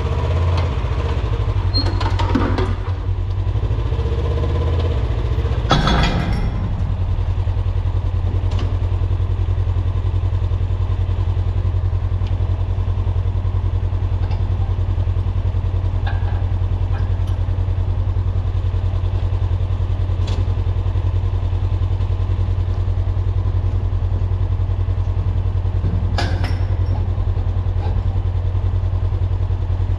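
Farm machine's engine idling steadily with a deep, even rumble, and a few brief clanks about 2, 6 and 26 seconds in.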